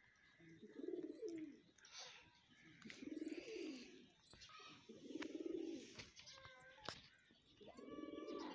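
Male domestic pigeon cooing in display, puffed up and strutting: four low, rolling coos about two seconds apart.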